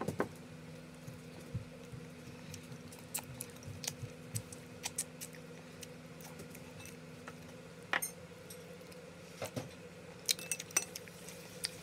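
A person eating from a plate with their fingers and chopsticks: scattered small clicks and taps against the dishes, with a sharper click about eight seconds in and a quick cluster of clicks near the end. A steady low hum runs underneath.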